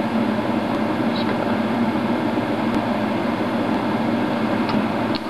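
Steady mechanical hum like a running fan or air-handling unit, with a few faint clicks.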